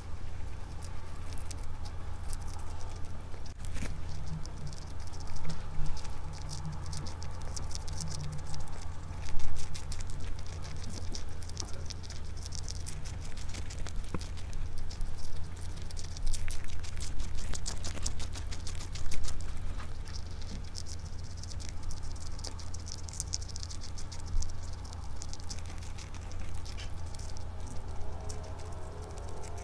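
Pet rat eating close to the microphone: a fast, irregular run of small nibbling and chewing clicks, with a few louder crunches, over a steady low hum.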